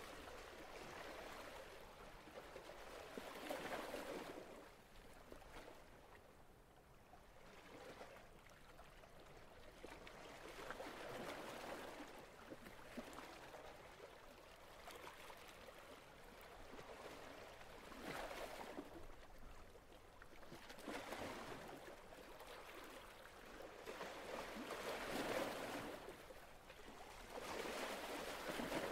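Faint water sound, gentle waves rising and falling away several times, a few seconds apart.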